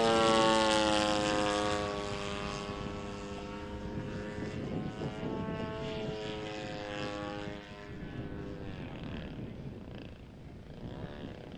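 Radio-controlled MXS aerobatic model airplane flying overhead, its motor and propeller giving a pitched drone. The drone is loudest at the start, dips in pitch as the plane passes, and fades away about eight seconds in.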